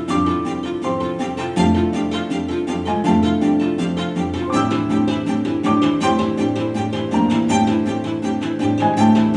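Background music with bowed and plucked strings over a quick, steady beat.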